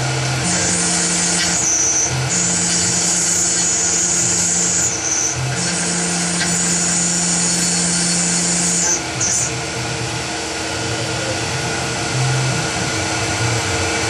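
CNC milling machine cutting brass: the spindle runs steadily, and the cut is heard as three passes of a few seconds each with short breaks between. The last pass stops about nine seconds in, leaving the machine running without the cutting.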